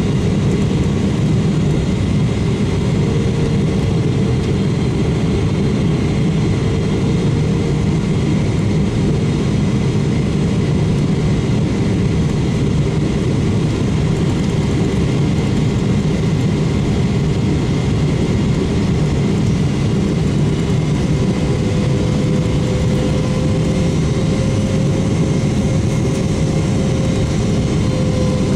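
Steady cabin roar of a Boeing 777-300ER from a seat beside its GE90-115B turbofan, low on approach, with a humming engine tone that rises slightly about three-quarters through.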